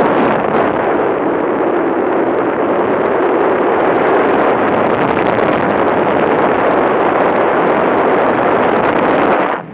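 Wind rushing over the microphone of a camera flying on a hang glider: a loud, steady noise that cuts out abruptly at the very end.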